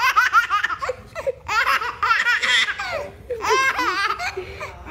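A baby laughing hard: three high-pitched runs of laughter about a second long each, with short breaths between.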